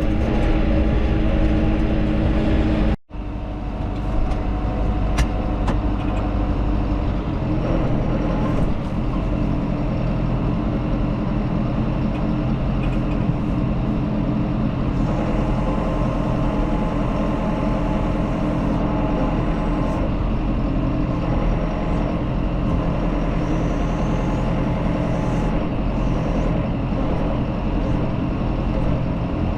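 Farm tractor engine running steadily, with a sharp cut in the sound about three seconds in.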